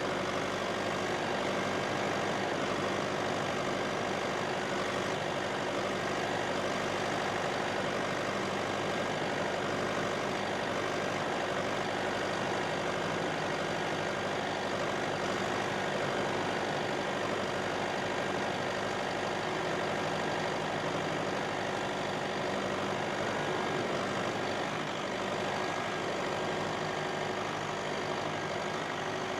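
Massey Ferguson tractor's diesel engine running steadily under load while pulling a plough.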